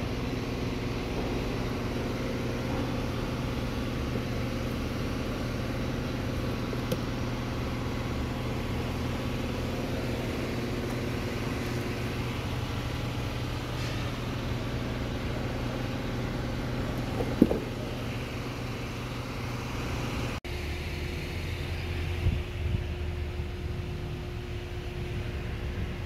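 Steady mechanical hum of a running machine, like an engine, with a single sharp knock about seventeen seconds in. After a cut about twenty seconds in, the hum carries on at a different pitch, with a few small knocks.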